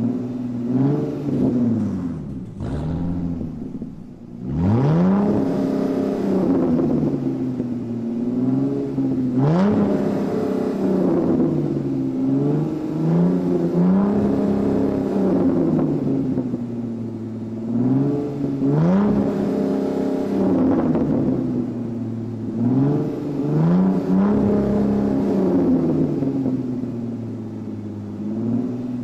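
Car engine revving up and down again and again, its pitch climbing and falling every few seconds, with a short lull about four seconds in.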